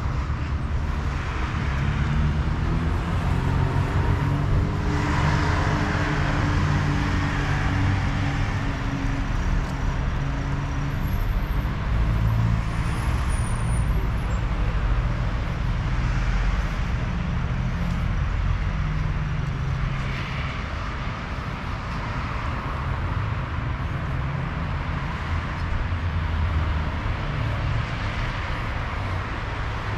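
Steady low rumble of street traffic, with a vehicle engine passing about two to eight seconds in.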